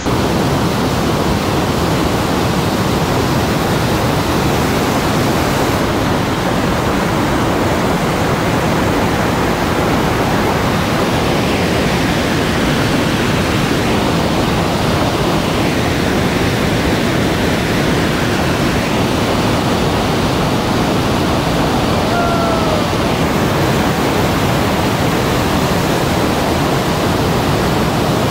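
Big whitewater rapid in a narrow rock gorge: a loud, steady, unbroken rush of churning water.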